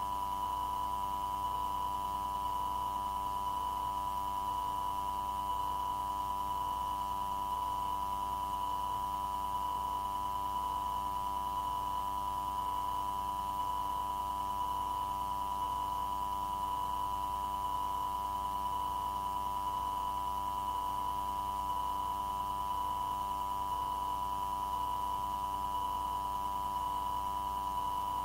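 A steady electronic tone, a pitch near 1 kHz with a fainter higher tone above it, unchanging throughout, on the air traffic control recording channel while no one transmits.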